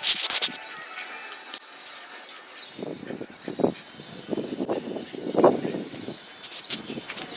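A bird chirping over and over, about two short high chirps a second, with a sharp knock at the start and muffled low bursts of noise in the middle.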